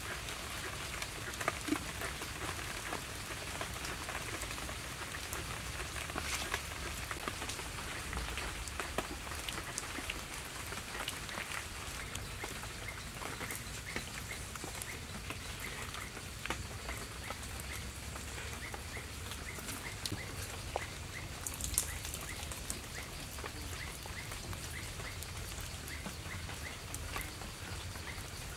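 Wet clay squishing and patting under bare hands as it is packed around the lid of a clay pot to seal it, over a steady crackling patter of small clicks. A short chirp repeats at a steady pace in the background from about halfway on.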